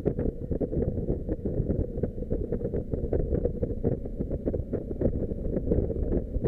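Wind rushing and buffeting against a motorcycle-mounted camera's microphone, over the steady low running of the motorcycle's engine at road speed.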